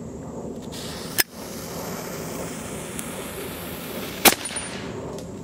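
A sharp click about a second in, then a lit fuse hissing and fizzing for about three seconds, then a 4.5 mm black-powder micro-howitzer going off with one loud, sharp bang. The charge is thought to be overpacked: the blast knocks the barrel off its base.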